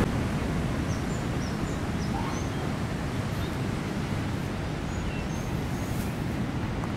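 Steady low rush of ocean surf and wind, with a few faint, short bird chirps scattered through it.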